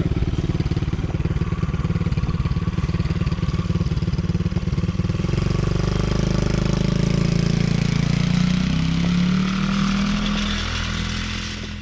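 Small 110cc four-stroke ATV engine running close by with a rapid, even chug, then revving up about five seconds in as it pulls away, its sound fading near the end.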